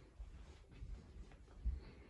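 Faint footsteps and handling noise from a handheld phone being carried while walking: soft, irregular low thumps, one louder near the end, with a few light clicks.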